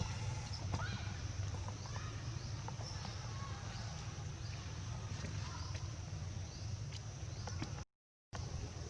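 Outdoor background noise: a steady low rumble with scattered light clicks and faint short chirps. The sound cuts out completely for about half a second near the end.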